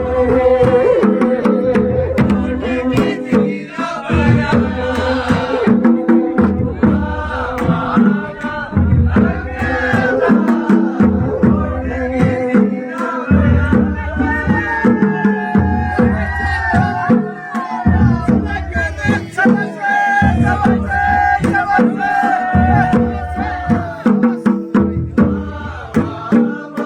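Pahari Nati folk music: a steady, repeating drumbeat under a wavering melody line.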